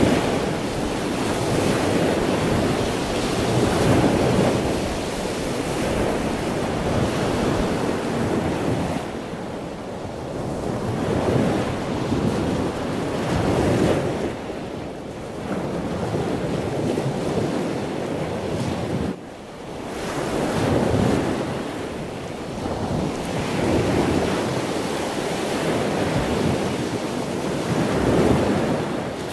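Wind buffeting the microphone over waves washing onto a sandy shore. The rush swells and eases every few seconds, with one brief dip about two-thirds of the way through.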